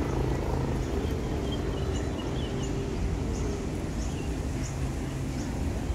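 Ferry engine running with a steady low hum, with faint short high chirps repeating above it.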